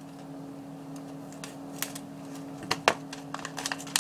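A plastic bag of pony beads being handled: scattered small clicks and crinkles, a few in the middle and more near the end, over a steady low hum.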